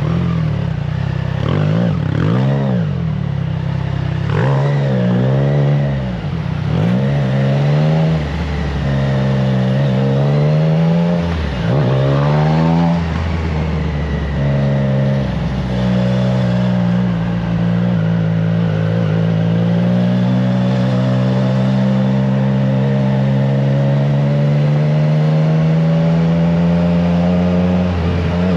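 Triumph Trident 660 inline three-cylinder engine through an aftermarket FireTong exhaust, riding at speed: the engine note rises and drops repeatedly through the first half as the rider accelerates and shifts, then holds a steady, slowly climbing cruise. Wind rushes on the microphone throughout.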